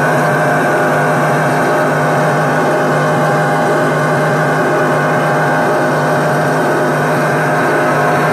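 Noise music: a loud, steady electronic drone from tabletop noise electronics played through a small guitar amplifier. It is a thick, unchanging wash holding many fixed tones over a low hum, with no beat.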